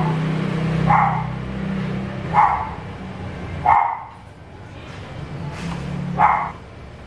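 A dog barking about five times at uneven intervals over a steady low hum.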